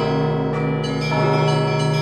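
Russian Orthodox church bells being rung in a peal (zvon): a deep, sustained bell hum under overlapping smaller bells, with fresh strikes at the start and again about a second in.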